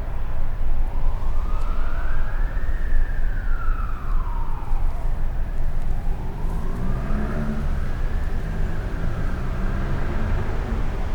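A wailing siren slowly rising and falling, about one sweep every five to six seconds, over a heavy low rumble of traffic.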